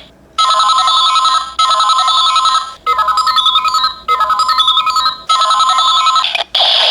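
Kamen Rider Decade K-Touch toy playing an electronic, ringtone-like jingle: a warbling tone with a short beeping melody over it, repeated five times about every 1.2 seconds.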